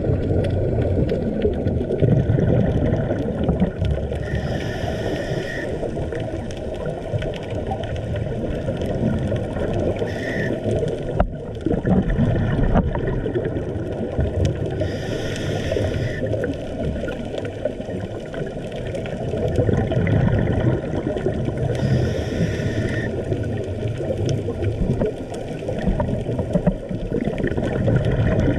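Underwater sound on a scuba dive: a steady low water rumble, broken about every five to six seconds by the hiss and bubbling of a diver breathing through a scuba regulator.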